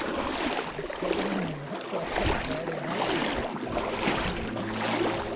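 Splashing and rushing river water as people wade across a river, with surges about once a second as they step through the current.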